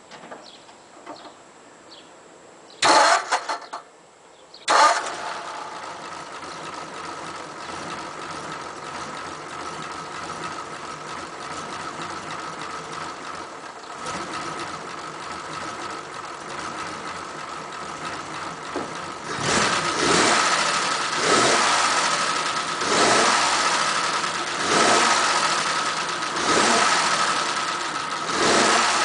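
Warm 1941 Ford pickup flathead V8 cranked briefly without catching, then starting on a second short crank and settling into a steady idle. In the last ten seconds the throttle is blipped over and over, a rev about every second and a half. The quick warm restart shows that the flooding, over-rich Holley carburettor is now set up right.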